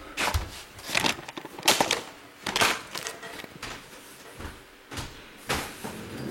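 A moving box being set down and shoved into place at the bottom of a stack: a string of separate thumps and scrapes.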